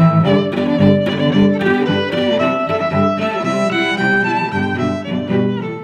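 Background music led by violin and other bowed strings, a busy run of notes at a steady level.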